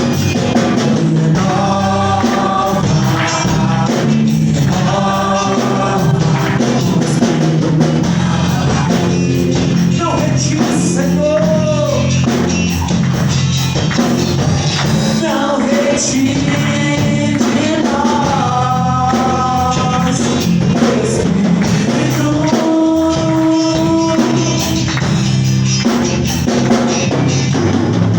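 Live gospel praise music: singers over a steady bass line with tambourine and drums keeping a regular beat.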